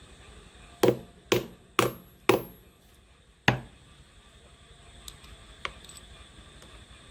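Hammer striking a metal part during assembly: four sharp knocks about half a second apart, then a fifth about a second later, each with a brief metallic ring, followed by two faint clicks.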